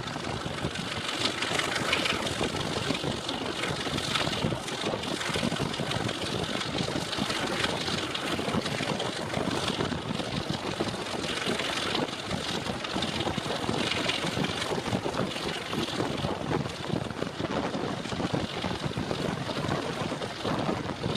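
Diesel locomotive engine running steadily.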